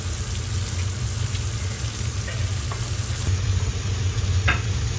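Prawns sizzling as they fry in hot oil, with a few light ticks of stirring, over the steady low hum of a running range hood fan.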